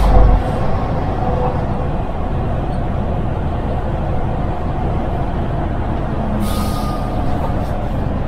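MAN TGX truck's diesel engine running steadily while driving, with road rumble. A heavy thump comes at the very start, and a short hiss comes about six and a half seconds in.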